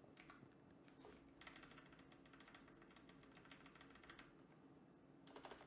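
Faint typing on a computer keyboard: a quick run of key clicks starting about a second and a half in, a little louder near the end.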